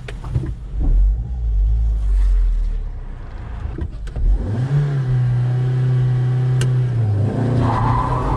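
Volkswagen Saveiro pickup's engine heard from inside the cabin under acceleration: after a few seconds of low road rumble, the engine note rises about halfway through, holds, dips briefly and climbs again near the end, as the truck pulls hard in a 0–100 km/h run.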